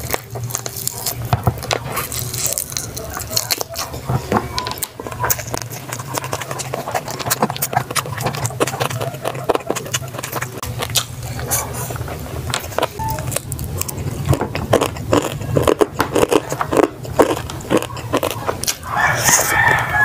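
Close-up eating sounds: chewing and crunching of food with many small sharp clicks and wet smacks, over a steady low hum.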